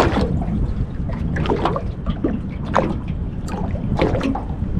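Water lapping and trickling against the hull of a drifting fishing boat, in short irregular splashes over a steady low rumble of wind.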